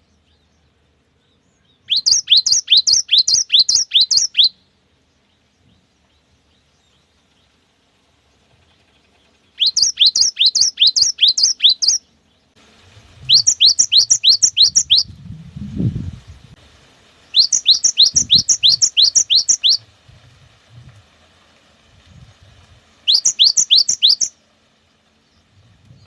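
Cinereous tit (gelatik batu) singing its 'wucit wucit' song in five bursts of quickly repeated whistled notes, each note sliding downward in pitch, about three notes a second, with pauses between bursts. A low, dull bump comes about midway through.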